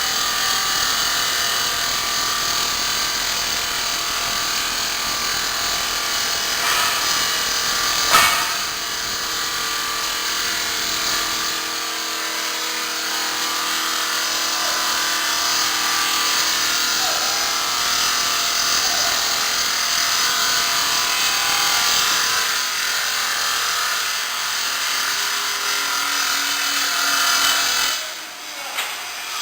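Maqfort RM350 SRF automatic granite-cutting saw running steadily, with one sharp knock about eight seconds in.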